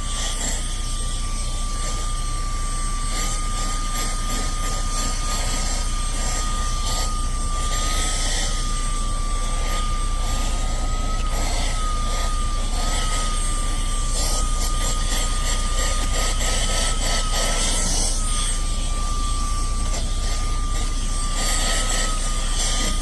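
DRECELL cordless handheld vacuum with a brushless motor running on turbo mode, a steady high whine over the rush of air, with many small clicks of crumbs and debris being sucked up through the bare nozzle.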